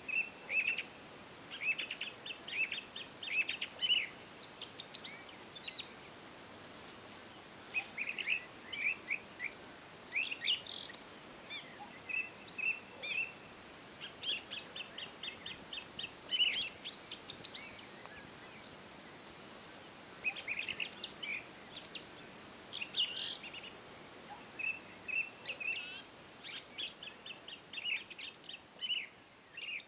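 Songbirds chirping and trilling throughout, with quick runs of rapidly repeated notes over a faint steady hiss.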